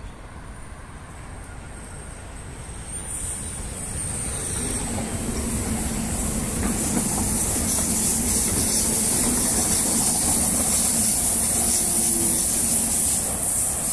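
Double-deck electric suburban train running in along the platform: the rolling of the wheels and the hum of the motors grow louder over the first few seconds, then hold steady and loud with a strong high hiss as the carriages pass close by.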